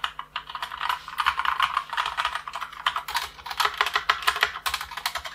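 Fast, continuous typing on a Modecom Volcano LanParty 2 RGB mechanical keyboard with Gateron Brown tactile switches: a dense run of key clacks, many strokes a second.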